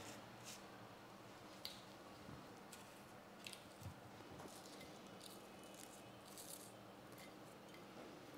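Near silence with faint, scattered light clicks and crackles from flaky fried kachoris being handled and set down on a plate.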